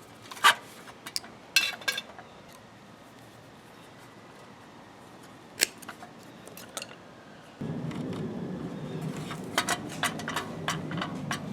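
Scattered sharp metallic clicks and clinks of hand work on a lawn mower's recoil starter. About two-thirds of the way through, a steady low hum starts abruptly and runs under further clicks.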